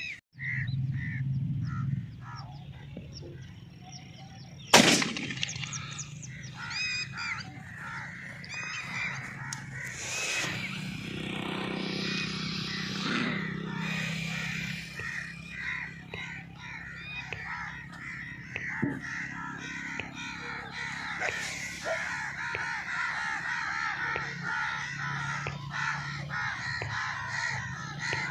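A single shotgun shot about five seconds in, then a crowd of birds calling and cawing without a break, growing busier in the second half.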